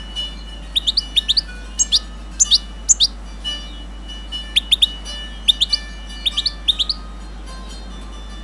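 Caged songbird chirping: short, sharp rising chirps, often in quick runs of two to four, repeated throughout.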